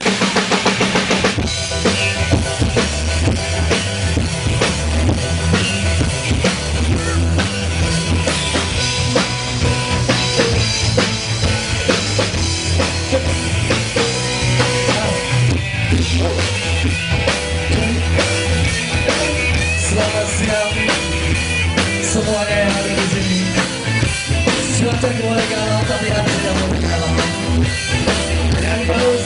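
Live band playing rock music, the drum kit prominent with bass drum and snare hits over a steady bass line and other instruments.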